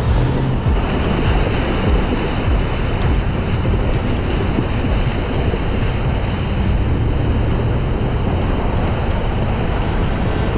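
Loud, steady rush of splashing water, as a Jeep drives through a flooded trail.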